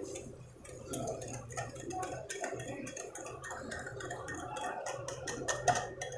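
A metal fork beating egg and sugar in a glass bowl: rapid, uneven clicking of the tines against the glass.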